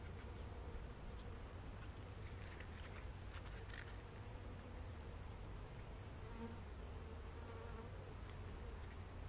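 Honeybees buzzing around an open hive: a faint, steady hum that wavers in pitch, with a few light clicks near the middle.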